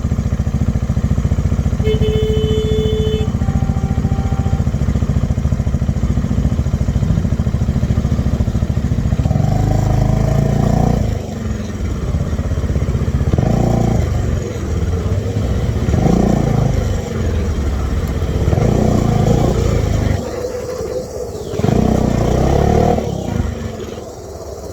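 Bajaj Dominar 400 UG motorcycle's single-cylinder engine idling steadily, then blipped five times in quick swells every two to three seconds from about ten seconds in.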